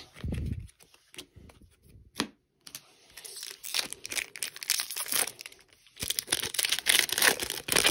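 A low thump and a few light taps, then from about three seconds in a foil Magic: The Gathering booster pack wrapper is torn open and crinkled, with dense crackling that gets busier near the end.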